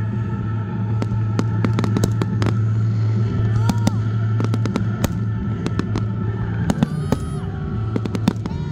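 Fireworks going off in rapid, irregular cracks and bangs, over music playing from loudspeakers.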